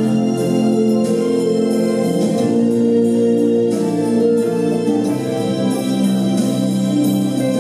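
Instrumental backing music with sustained organ-like keyboard chords.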